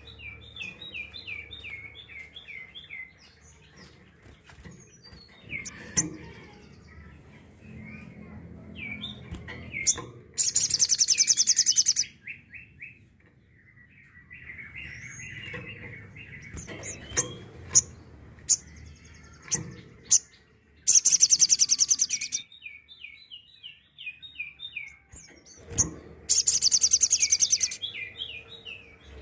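Sogok ontong (little spiderhunter) calling: series of quick, even chirps, broken three times by loud, very fast, high-pitched rattling trills of about a second and a half each. These are the bursts that keepers call 'tembakan'.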